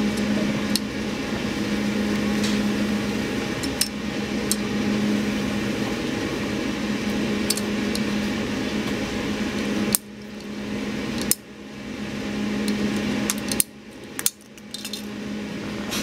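Ratcheting hand cutter working through a coaxial feeder cable, giving scattered sharp metallic clicks as its handles are pumped, over a steady low hum.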